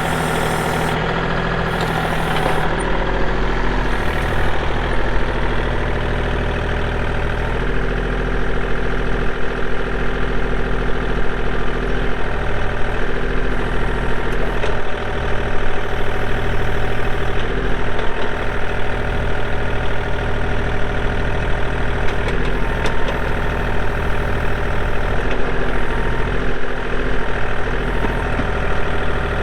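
Kubota L2501 tractor's three-cylinder diesel engine running steadily, getting a little louder about 8 seconds in and again about 15 seconds in.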